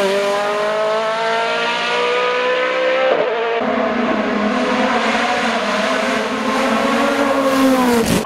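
Hill-climb racing car engines at full throttle. The first engine climbs steadily in pitch as the car accelerates. After an abrupt change about three seconds in, a second car's engine holds a high, steady note and drops in pitch near the end.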